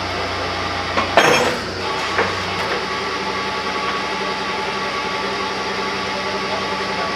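A borewell drilling rig's engine running steadily, with a loud metallic clank about a second in and a smaller knock about a second later.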